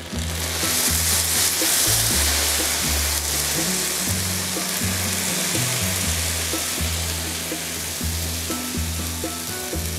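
Cool sugar syrup sizzling as it is ladled over hot, just-baked baklava, a steady hiss that starts at once and eases slightly toward the end, over background music.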